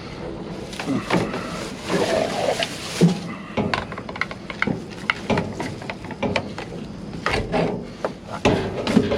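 Things being handled and moved about in a pile of thrown-out goods: a run of knocks, clunks and rustles throughout, a few louder knocks among them.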